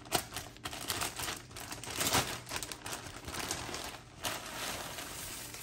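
Clear plastic packaging bag crinkling and rustling irregularly as it is handled open and the leggings are pulled out. The crackling comes loudest about two seconds in.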